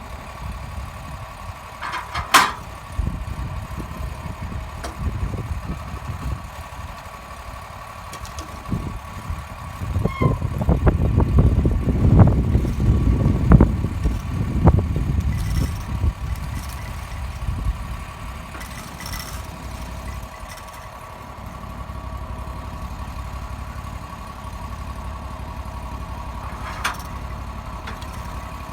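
An engine running steadily, with a sharp click about two seconds in and a louder stretch of rumbling and knocking in the middle.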